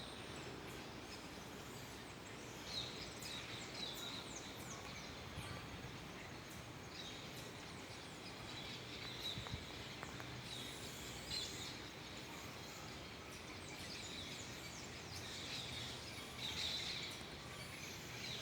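Steady outdoor background hiss with many short, high bird chirps and twitters scattered through, busiest and loudest near the end.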